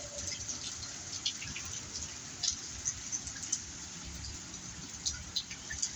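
Rain falling steadily, with scattered sharp ticks of single drops landing close by. The rain is easing off from a heavy downpour.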